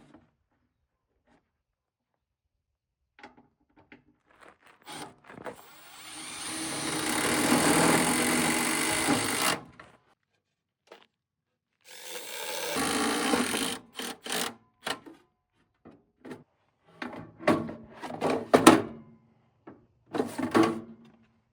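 Angle grinder cutting a notch in the metal, in two runs of a few seconds each, followed by a string of sharp knocks and clanks.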